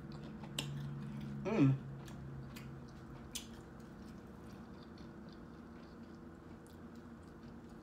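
Close-miked chewing of seafood with the mouth closed, with scattered small wet clicks and smacks. About a second and a half in comes a brief hummed "mm" that falls in pitch. A steady low hum runs underneath.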